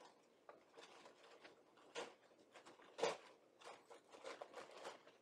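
Faint, irregular rustling and light knocks of a box and its paper contents being handled and opened, with the sharpest knock about three seconds in.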